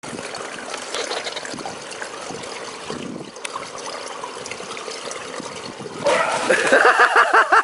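Swimming-pool water lapping and trickling, then a loud splash about six seconds in as a swimmer bursts up out of the water. Right after it a high-pitched voice calls out in quick repeated bursts.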